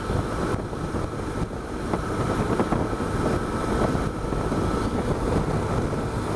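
Wind rushing over the microphone together with the steady running noise of a BMW R1200GS motorcycle at road speed.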